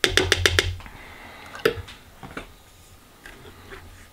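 A wooden spoon knocks about five times in quick succession against a plastic mesh strainer sitting on a slow cooker's crock, then gives two more single knocks, the first of them loud, as it works tomato sauce through the mesh to strain out the seeds.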